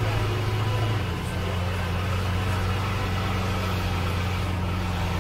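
Lamborghini Veneno's V12 engine running steadily at low speed, near idle. Its low, even note drops slightly in pitch about a second in and then holds.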